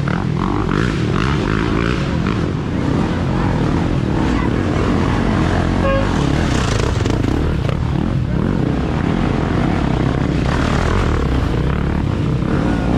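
Dirt bike engines running and revving as riders pick their way through a rock garden, a loud, continuous din.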